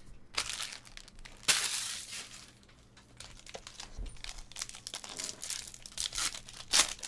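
Foil wrapper of a trading-card pack crinkling as it is handled and torn open, in irregular crackly bursts, loudest about a second and a half in and again near the end.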